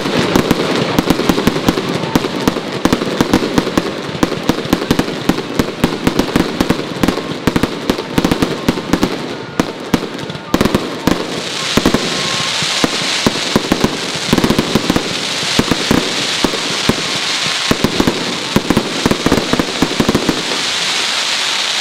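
Fireworks going off in rapid succession: a dense string of bangs and pops. About halfway through, a steady crackling hiss joins in.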